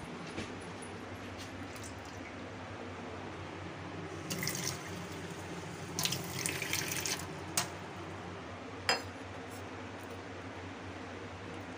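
Kitchen tap running into a stainless-steel sink in two short spells, about four and six seconds in, as something is rinsed. Two sharp clinks follow.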